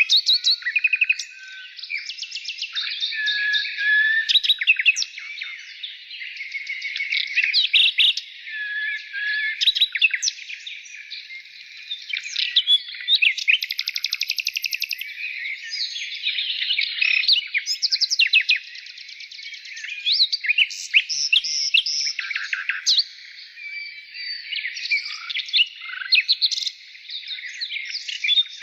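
Many songbirds chirping and singing at once: a dense, continuous chorus of overlapping rapid trills, short chirps and whistled notes.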